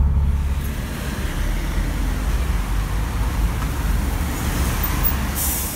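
Road traffic noise on a wet street beside a Dennis Trident double-decker bus running at its stop, with a short sharp hiss near the end.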